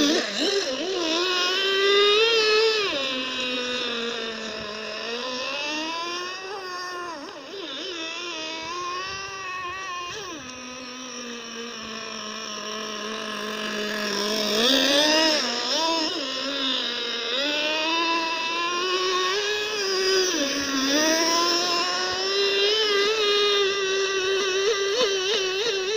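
Small .28 nitro glow engine of a handmade wooden RC boat running at high revs as the boat speeds over the water, its pitch rising and falling again and again as it turns and passes.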